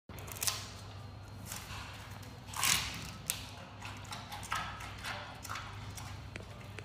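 Giant panda biting and chewing a bamboo stalk: a series of irregular crisp crunches, the loudest a little under three seconds in, over a low steady hum.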